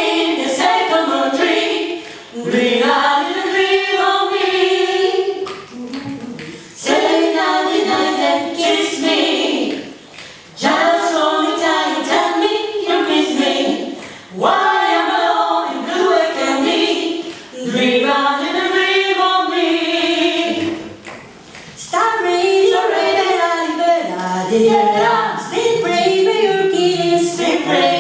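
A small vocal group of mixed voices singing a cappella, several parts at once, in phrases a few seconds long with brief breaths between them.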